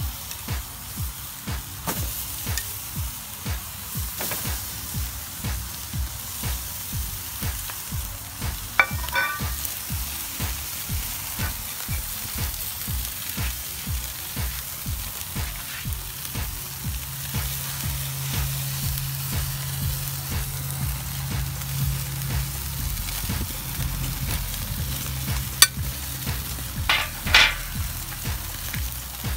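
Beef steaks sizzling on the grate of a charcoal grill, a steady frying hiss, with background music with a steady beat underneath.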